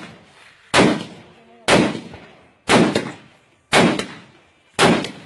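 Rifle shots fired in steady succession, about one a second, five in all. Each is a sharp report followed by a trailing echo.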